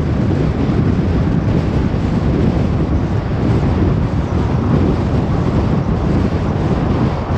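Car driving on the road: steady low rumble of tyre and wind noise with no change in level.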